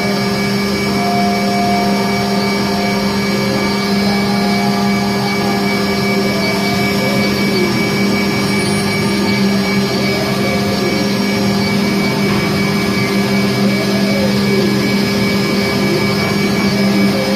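Spindle of a 2005 Mazak Variaxis 500 five-axis CNC vertical mill running steadily at high speed, about 12,000 rpm, a constant hum with overtones. Faint tones sweep up and down over it now and then.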